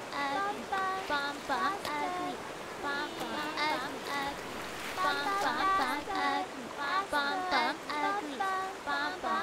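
Several high-pitched women's and children's voices overlapping, over the steady rush of a shallow river flowing over rocks.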